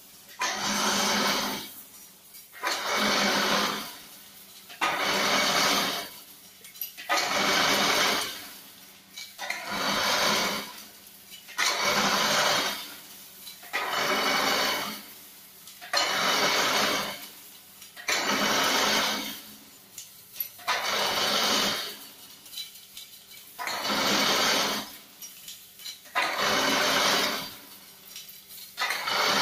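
Chain-link fence mesh weaving machine running in cycles: a burst of machine noise about a second long, repeating roughly every two seconds, over a steady low hum.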